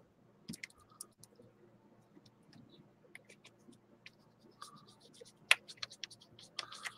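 Faint scratching and clicking of a tempera paint stick being scribbled onto brown paper and the swatch rubbed with the fingers, with a sharper click about five and a half seconds in.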